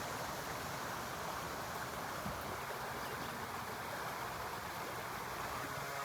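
Creek water flowing in a steady rush, with one faint tap about two seconds in.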